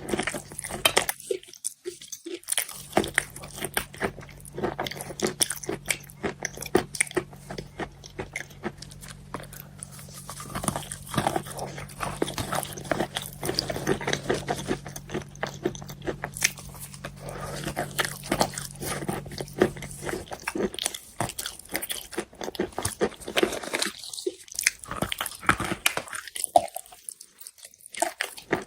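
Close-miked biting and chewing of wet chalk: dense, irregular soft crunches, pausing briefly a few times. A low steady hum sits underneath and stops about two-thirds of the way in.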